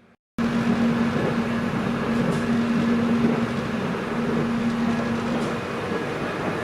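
Inside the carriage of a moving electric airport rail link train: a steady running rumble with a steady hum over it that fades about five and a half seconds in. It starts abruptly just after the beginning.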